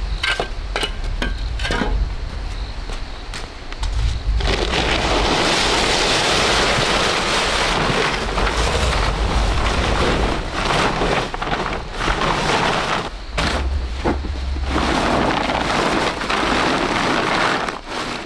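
Plastic tarpaulins crinkling and rustling loudly as they are dragged and folded. This starts about four seconds in, after a few separate knocks.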